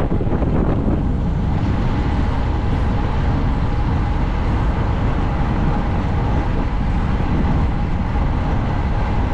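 Steady wind rush buffeting a camera microphone on a racing bicycle at speed, with road noise underneath.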